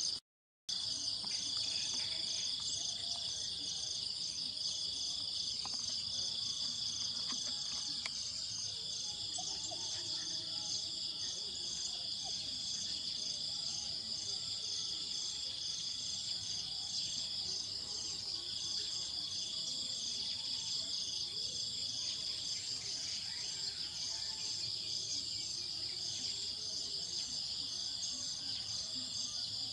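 A steady, high-pitched chorus of insects: an even, pulsing trill over a continuous buzz, with a second thinner tone that comes and goes in long stretches. The sound cuts out for a moment right at the start.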